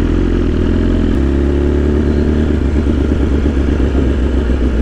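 BMW S1000RR's inline-four engine with an Akrapovič short exhaust, running while the bike is ridden; the engine note shifts about a second in and then holds steady.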